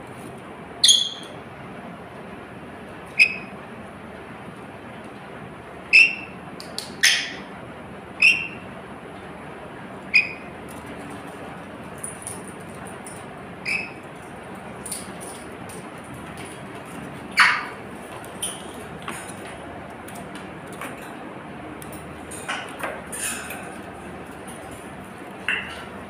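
A caged lory giving short, sharp, high calls, one every one to three seconds, some much louder than others, over a faint steady background hum.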